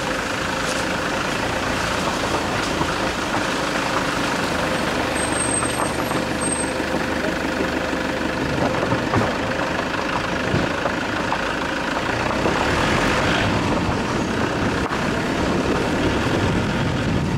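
A vehicle driving along a rough road: steady engine and road noise, with tyres running over gravel and loose stones.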